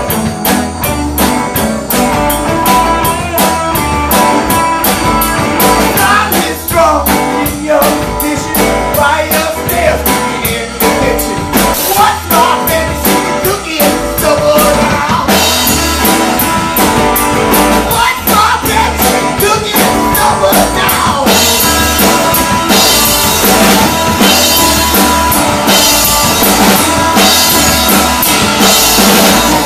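Live band playing a rock song: strummed acoustic guitar, electric guitar and drum kit, with a singer coming in about six seconds in. The cymbals get louder about halfway through.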